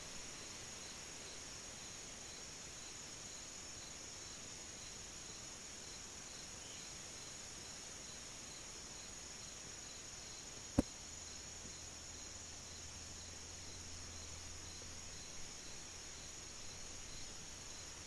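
Steady, high-pitched insect chorus with a second, slightly lower insect chirping about twice a second. One sharp click about eleven seconds in.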